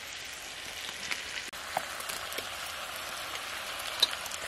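Ground masala sizzling in hot oil in a pressure cooker, a steady frying hiss, as raw chicken pieces are dropped in by hand. A few short sharp ticks, the loudest near the end.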